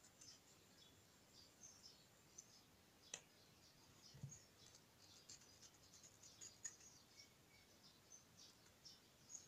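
Near silence, with faint crisp ticks and scrapes of a small carving knife cutting into watermelon flesh as the inside of a carved flower is hollowed out, and a sharper click about three seconds in.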